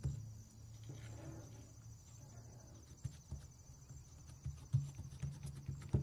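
Hands patting and pressing a folded sheet of yeast puff-pastry dough on a plastic pastry mat: soft, irregular thuds, more frequent toward the end.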